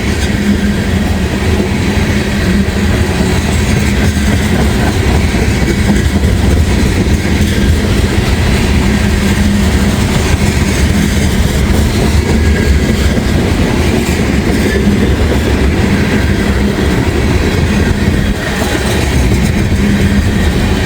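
Freight train of loaded ethanol tank cars rolling past at close range, a loud, steady rumble and rattle of wheels and cars on the rails.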